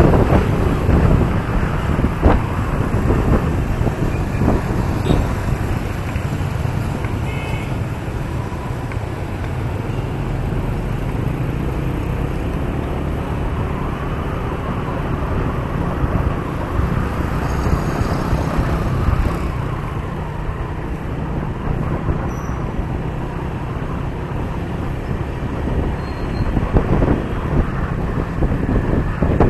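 Motorbike riding through traffic: a steady mix of its engine, road and wind noise on the microphone, and other vehicles around it, with rougher wind buffeting near the end.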